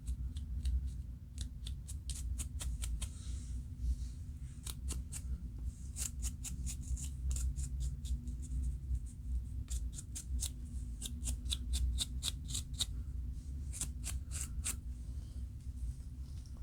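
Scratching at a dandruff-flaked scalp: quick, irregular short scrapes, often in quick runs, over a low steady hum.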